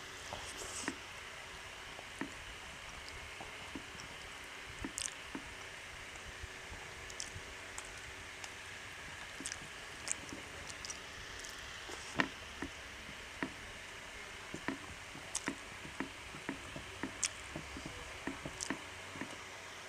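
Eating sounds: soft wet squishes and small clicks of rice and curry being mixed and eaten, coming irregularly over a steady faint hiss.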